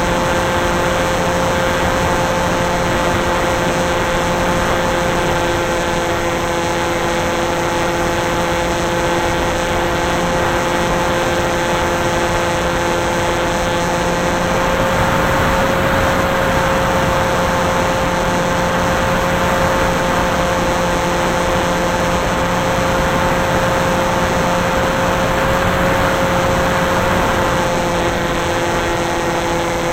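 Electric motor and propeller of an FPV model aircraft running steadily, heard from its onboard camera: a steady whine of several tones over rushing wind noise. About halfway through the whine rises slightly in pitch and the rush grows, then settles near the end.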